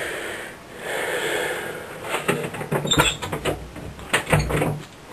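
Handling noise around a handheld camcorder: two soft breathy whooshes, then from about two seconds in a run of clicks, knocks and low thuds as things are moved about.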